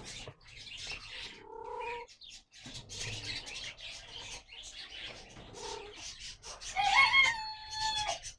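A rooster crows once near the end, a long held call that is the loudest sound here, over a busy background of small bird calls and rustling, with two shorter calls earlier on.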